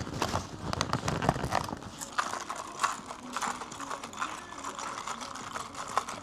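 Plastic lid being worked open by hand: a rapid run of sharp clicks and plastic rustling, the sound of a double-layered lid being pried and peeled off.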